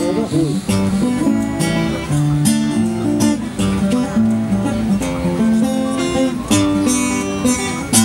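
Classical acoustic guitar playing the closing instrumental bars of a song, strummed and picked chords ringing out.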